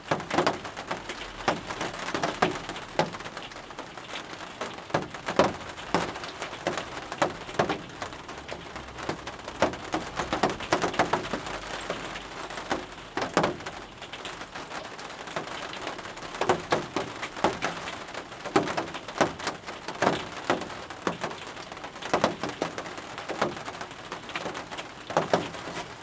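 Rain falling on a greenhouse roof: a steady hiss with many irregular sharper drop taps.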